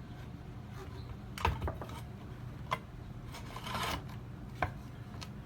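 A few light knocks and a short scrape from wood and a tool being handled, over a steady low hum; the saw is not running.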